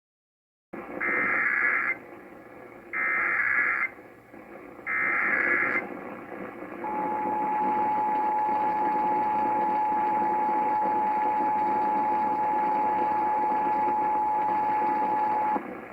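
Emergency Alert System alert received over radio: three short bursts of SAME header data tones, then the two-tone EAS attention signal held steadily for about nine seconds, all over a background of radio hiss. It is the opening of a Required Monthly Test.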